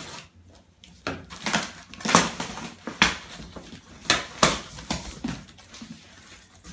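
Packing tape being slit and ripped off a large cardboard box and the stiff cardboard flaps pulled open: a string of sharp tearing and scraping noises, about half a dozen loud strokes over several seconds.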